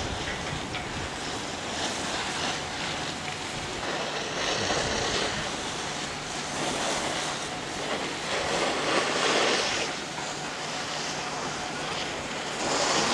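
Wind rushing over the camera microphone on a moving chairlift: a steady noise that swells twice, about four and about nine seconds in.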